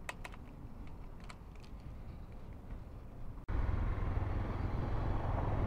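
Honda CRF250L single-cylinder four-stroke engine idling low, with a few light clicks in the first second or so. After an abrupt cut about three and a half seconds in, the bike is under way, and the engine and wind noise are much louder.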